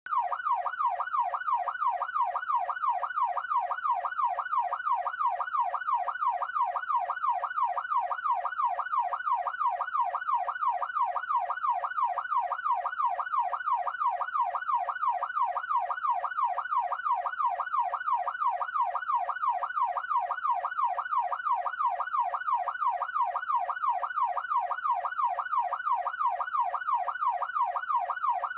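Electronic police siren in fast yelp mode, its pitch sweeping rapidly up and down about twice a second, steady and unchanging.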